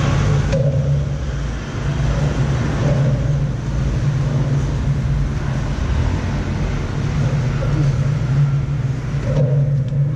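A steady low engine hum over a rumble.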